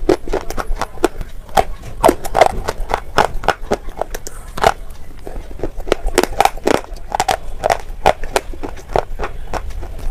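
Close-miked crunching and chewing of red Rehan slate pencils: brittle, sharp crackling crunches about three times a second as the chalky sticks are ground between the teeth.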